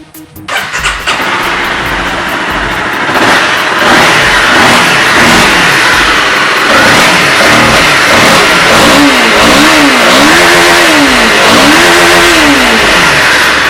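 Honda CBR250R's single-cylinder engine starting and running, then revved up and let fall back three times near the end, after a fresh air-filter cleaning.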